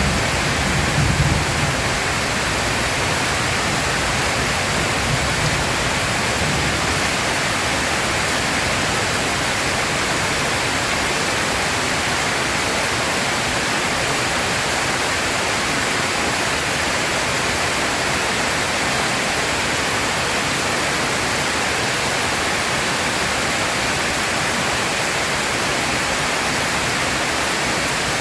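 Heavy rain falling in a steady, even hiss, with the tail of a low thunder rumble dying away in the first two seconds.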